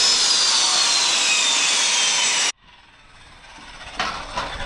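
Power saw cutting through a 2x4 board, a steady rasping noise with a high whine that slowly falls in pitch, stopping abruptly about halfway through. A sharp knock follows near the end.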